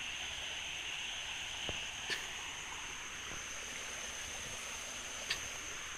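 Steady outdoor ambience: a constant high insect drone over a soft wash of light rain, with two faint clicks, one about two seconds in and one near the end.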